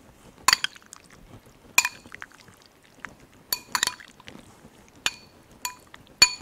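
A spoon stirring olives in a glass bowl of liquid marinade, clinking against the glass about seven times at irregular intervals, each clink ringing briefly.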